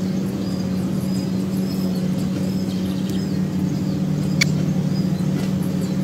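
Faint, short high chirps of small birds repeating over a steady low hum, with one sharp click about four and a half seconds in.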